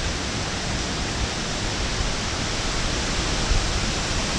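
Strong wind of an approaching thunderstorm blowing steadily, a continuous rushing with uneven low rumbles of wind buffeting the microphone.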